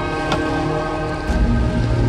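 Background music with sustained, held tones, over a low rumble that grows louder about a second and a half in.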